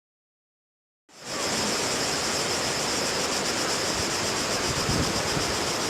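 Steady rush of waterfall water, with a high, evenly pulsing insect buzz above it. The sound starts abruptly about a second in.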